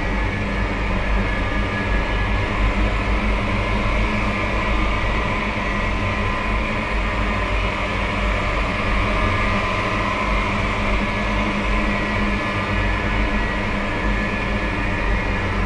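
Steady dark horror ambience drone: a low rumble under a dense hiss, with a few faint high tones held throughout and no beat or pauses.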